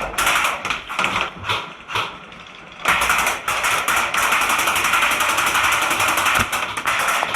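Airsoft guns firing: quick bursts of shots, a brief lull about two seconds in, then a long, fast, unbroken full-auto rattle.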